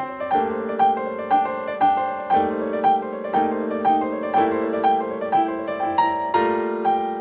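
Background piano music: a gentle melody with notes struck about twice a second over held chords.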